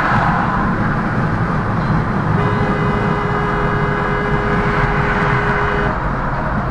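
Dense road and engine noise from a car in traffic, with a vehicle horn held in one steady blast of about three and a half seconds starting a couple of seconds in.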